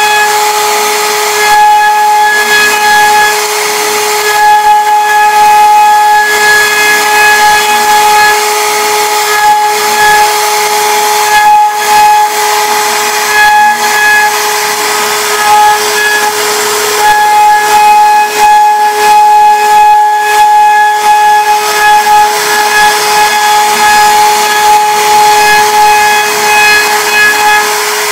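CNC router spindle whining at a steady high pitch while its bit carves a relief pattern into a wooden door panel, with a hiss of wood being cut.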